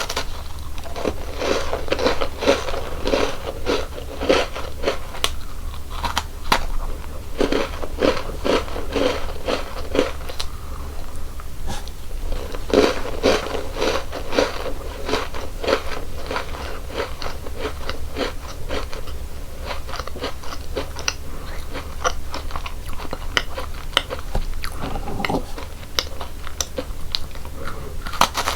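Close-miked biting and crunching into crisp chocolate snacks and cookies, then chewing them. Bursts of dense crunching come in several clusters, with softer, sparser chewing crackles between.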